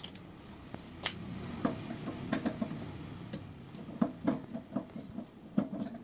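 Irregular light clicks and knocks of hands handling a small motor and its mounting in the metal back panel of a microwave oven.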